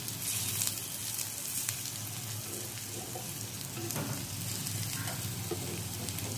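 Oil sizzling steadily in a small pan as thick slices of steamed cabbage rolls shallow-fry with sesame seeds. A few light clicks of tongs and a spatula against the pan come through as the pieces are turned.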